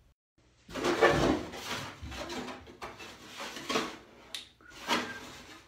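A hollow vacuum-formed plastic proton pack shell being lifted off a counter and handled, its thin plastic walls rubbing, scraping and knocking. The sounds start about a second in and come in several uneven scrapes and knocks, with one sharp click near the end.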